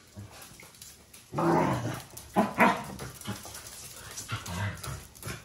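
Welsh Corgis barking and whining excitedly in a few separate outbursts, the longest and loudest about a second and a half in, with shorter calls around two and a half and four and a half seconds in.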